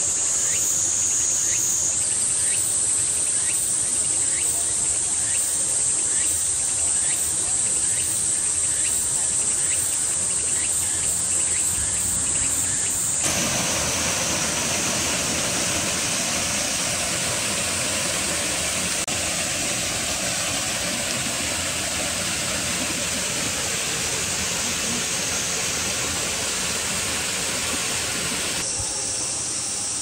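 Steady, high-pitched drone of summer insects, with faint regular chirps under it in the first half. About halfway through, the background switches abruptly to a fuller, lower-reaching hiss, and it switches back near the end.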